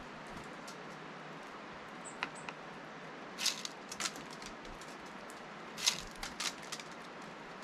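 Steller's jay pecking and rummaging in a plastic tray of sunflower seeds: scattered sharp taps and short seed rattles, with clusters about three and a half and six seconds in, over a steady background hiss.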